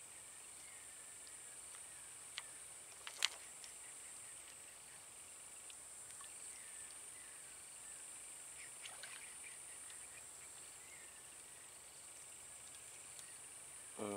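Faint swamp ambience: a steady high insect hum with a few soft scattered chirps, and two sharp clicks about two and a half and three seconds in, the second one louder.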